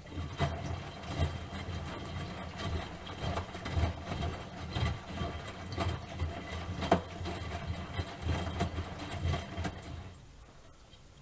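Miele Softtronic W3923 front-loading washing machine turning its drum, a low motor hum with irregular thumps and knocks of the laundry tumbling inside; the drum stops about ten seconds in.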